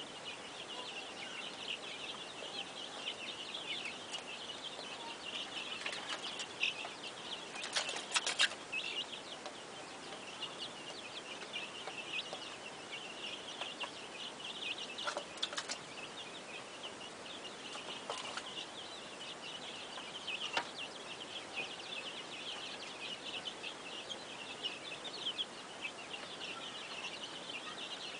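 A flock of chickens packed in a poultry house, calling in a continuous dense, high-pitched chatter. A few brief sharp knocks or flaps cut through it, most of them about eight seconds in.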